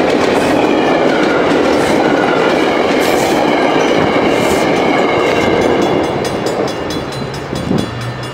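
Passenger train coaches rolling past close by, wheels clattering on the rails. The noise drops off about six seconds in as the last car goes by.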